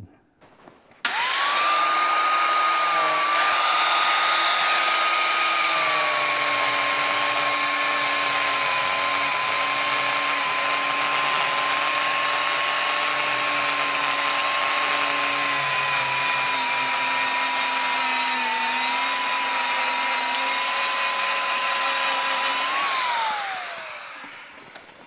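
Electric angle grinder with a cut-off wheel starts about a second in, whines up to speed and cuts through a metal bushing clamped in a vise, with a steady high whine and grinding hiss. Its pitch drops a little when it bites into the cut. Near the end it is switched off and winds down with a falling whine.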